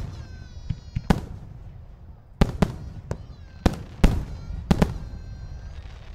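Aerial fireworks shells bursting: a string of about eight sharp bangs in six seconds, some coming in quick pairs, each trailing a short rumbling echo.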